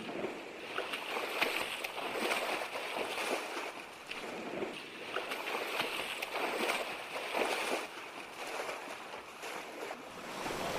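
Ocean surf: a wash of waves rising and falling in swells every few seconds.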